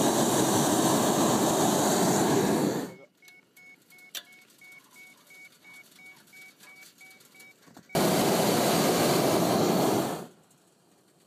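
Hot-air balloon propane burner firing in two blasts, the first about three seconds long and the second about two, each starting and stopping abruptly. Between them an electronic beep repeats about three times a second.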